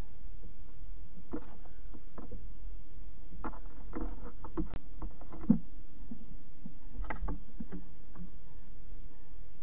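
Scattered light knocks and scrapes of a barn owl moving on the wooden nest box at its entrance hole, in small clusters with a sharper click about five seconds in, over a steady low electrical hum.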